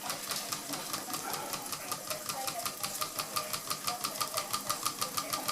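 A 1930s Bing upright toy steam engine running fast, its exhaust chuffing in a rapid, even beat that quickens slightly towards the end.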